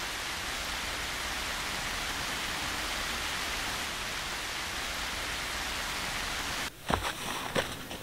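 Steady rain falling, an even hiss that cuts off suddenly near the end. A few sharp knocks follow in the last second or so.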